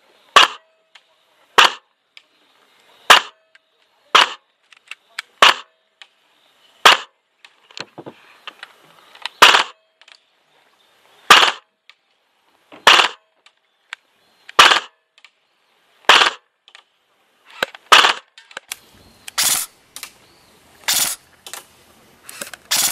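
ASG Scorpion EVO 3 A1 electric airsoft gun firing 0.28 g BBs: sharp shots about one every one and a half seconds. In the second half it switches to three-round bursts.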